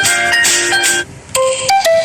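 Phone ringtone melodies: one ends about a second in, and after a short gap a different ringtone tune begins.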